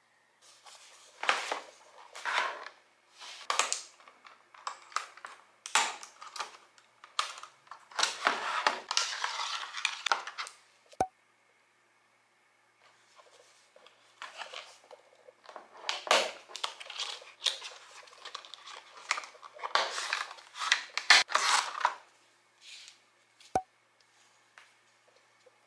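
Hard clear plastic packaging being handled and opened: irregular crinkling, clicking and rustling, pausing briefly about halfway through.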